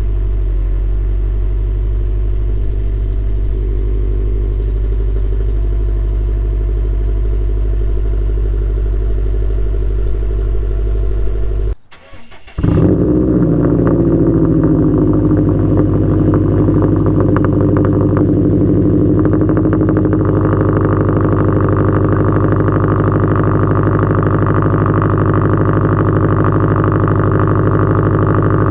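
2016 Subaru WRX STI's turbocharged flat-four idling after a cold start, heard through the exhaust: a steady idle for about twelve seconds, a short break, then a second steady idle that is louder in the middle range and wavers briefly before settling.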